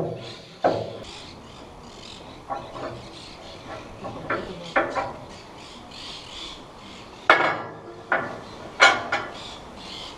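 Irregular knocks and clanks of tools on metal parts, some with a short ring, the loudest three about seven to nine seconds in.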